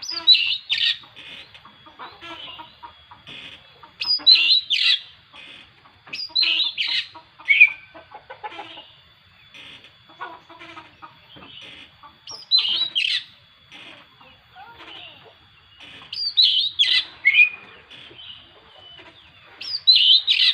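Oriental magpie-robin (kacer) singing, loud high whistled phrases repeated every few seconds with softer chattering between them. Its voice has gone slightly hoarse from singing nonstop, as the owner puts it.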